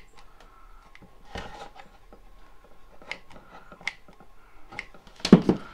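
Handling noises of a mini hot glue gun worked along the seam of a cardboard box: scattered light clicks and rubbing against the cardboard, with a louder knock or two near the end.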